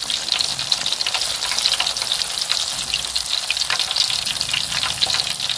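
Battered banana fritters deep-frying in hot oil in a small metal pan: a steady, dense crackling sizzle of the bubbling batter.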